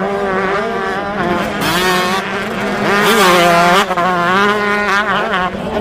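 Motocross dirt bike engines running hard on a track, their pitch rising and falling as the throttle opens and closes.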